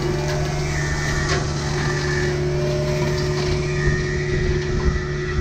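Kubota U55-4 mini excavator's diesel engine running steadily while it drives an MTL XC5 hydraulic brush cutter, with a whine that comes and goes and a few sharp cracks.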